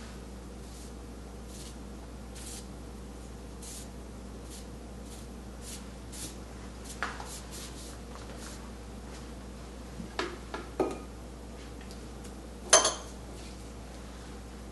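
Faint, brief swishes of an ink brush stroking across rice paper. In the second half come several light knocks and clinks of the brush against the ceramic painting dishes and water glass, the loudest a sharp, ringing clink near the end.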